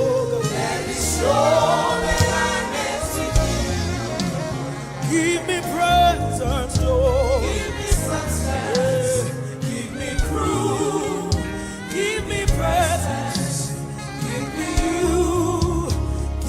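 Gospel worship music: singers holding and ornamenting long, wavering notes with no clear words, over instrumental accompaniment with a steady bass.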